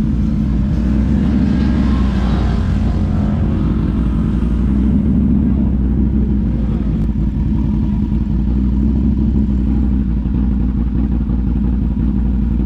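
Side-by-side UTV engine idling steadily close by, a low, even rumble with no revving.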